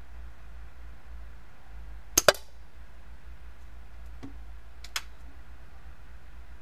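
Daisy PowerLine 901 multi-pump pneumatic air rifle firing one shot: a sharp double crack about two seconds in. Then a faint click and, near five seconds, a sharper click as the rifle is handled.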